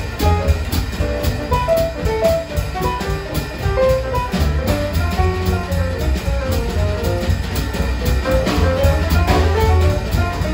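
Jazz piano trio playing together: a grand piano plays a melodic line over plucked upright double bass notes and a drum kit kept going on the cymbals.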